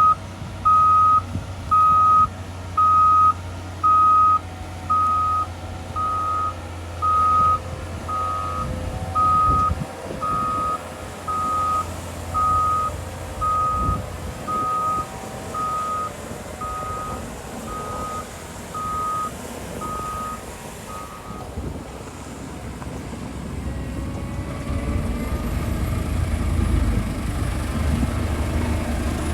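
Back-up alarm on a heavy earthmoving machine beeping steadily, about once a second, over a diesel engine's low running. The beeping stops about three quarters of the way through, and the engine grows louder near the end.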